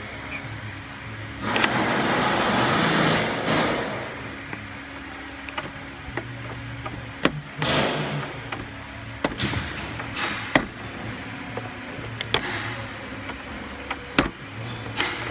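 Repair work under a car: a rush of noise lasting about two seconds, a shorter one later, and scattered sharp clicks and knocks over a steady low hum.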